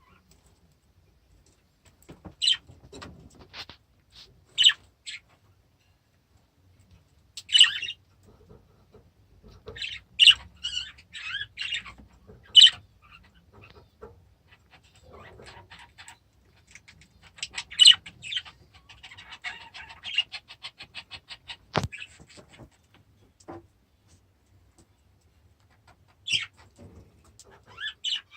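Budgerigars calling with short, sharp chirps at irregular intervals, with a run of rapid ticking chatter about two-thirds of the way in.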